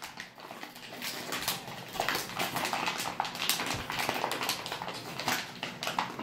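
Plastic foil toy bag crinkling and rustling as it is opened and handled, in quick irregular crackles.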